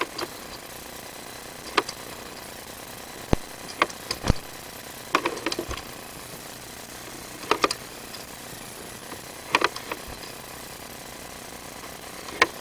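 Sewer inspection camera being pushed along a drain pipe: irregular sharp clacks and knocks, single or in quick clusters every second or two, as the camera head and push rod knock against the pipe, over a steady hum.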